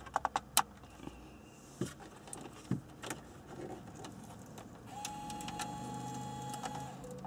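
Plastic wiring-harness connectors and wires clicking and rattling as they are handled and plugged into the back of an aftermarket car radio, sharpest in the first second. A faint steady hum with a thin tone runs through the last couple of seconds.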